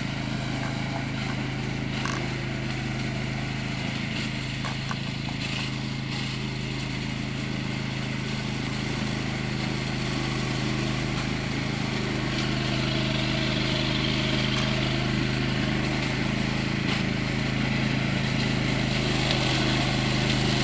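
A remote-controlled lawn mower's 13 hp Tosaka petrol engine runs at a steady speed with an even hum. It grows gradually louder as the mower comes closer.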